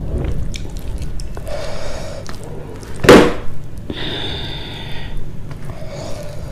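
Close-miked eating sounds: fingers squishing and mixing rice with chutney on a plate, with small wet clicks over a low rumble. A single sharp thump about three seconds in is the loudest sound, followed by a brief hiss.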